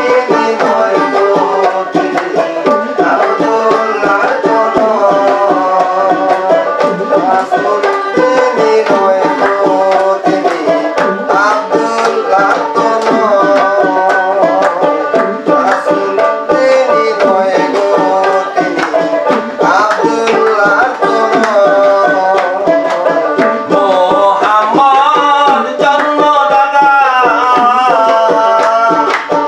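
Bengali Baul folk music played live: a hand drum keeps a quick rhythm under a melodic line.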